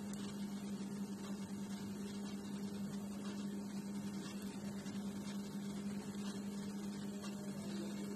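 A steady low hum over faint background noise: room tone.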